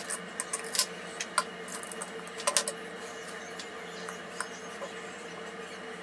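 Light clicks and taps of small silver pieces and metal tools being handled on a soldering block, several in the first few seconds, over a steady low hum.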